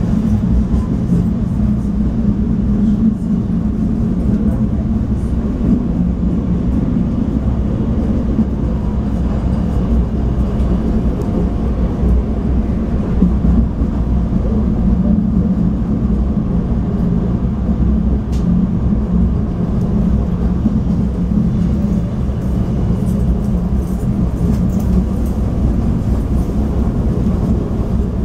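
Interior running noise of a River Line diesel light rail railcar (Stadler GTW) moving along the track: a steady low drone from the diesel engine and the wheels on the rails.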